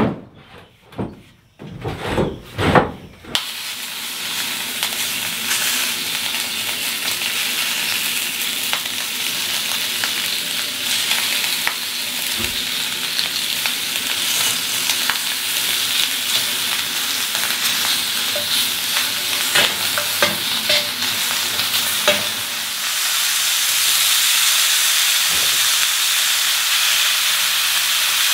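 Bacon sizzling as it fries in a steel cold handle skillet, with now and then a spoon clicking against the pan. The sizzle gets louder near the end as ground beef goes into the pan. The first few seconds hold sharp clacks from a folding camp cot's metal legs being set up.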